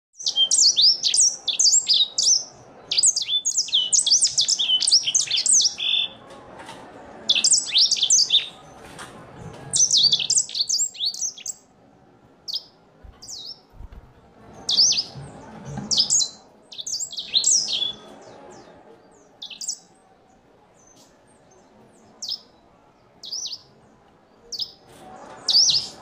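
A caged grey singing finch (sanger) singing. Rapid, high twittering phrases fill the first ten seconds or so, broken by short gaps. After that it gives only scattered short chirps, spaced a second or more apart.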